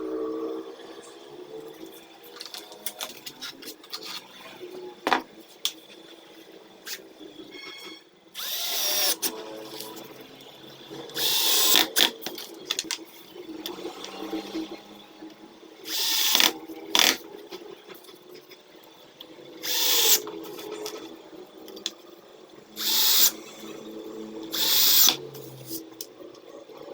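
Power tool running steadily, with loud bursts about a second long coming every few seconds, six in all.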